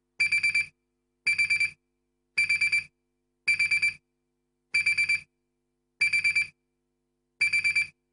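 Digital alarm clock beeping: seven bursts of four quick, high beeps, repeating about once a second.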